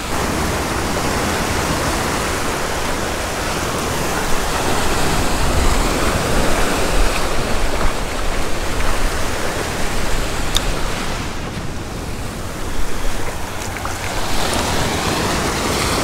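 Surf washing steadily onto a sandy beach, an even rush of breaking waves, with a low rumble of wind on the microphone.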